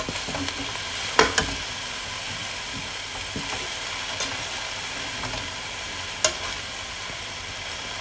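Shredded cabbage, carrot and glass noodles sizzling in a hot wok as they are tossed with a metal spatula, the vegetables still being cooked down. Sharp clinks of the spatula against the pan come twice about a second in and once again a little after six seconds.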